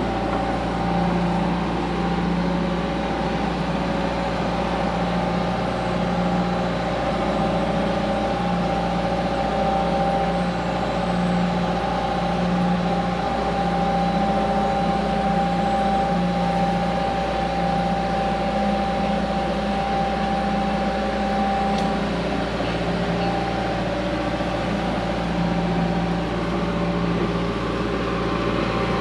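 Diesel excavator engine running steadily under load, with a steady high tone over the engine hum, as it pulls a water line plow through the ground.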